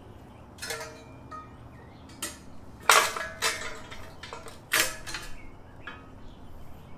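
Fabricated metal headlight housings and parts being handled and set down, a string of clinks and clanks with a short metallic ring, the loudest knock about three seconds in and another near five seconds.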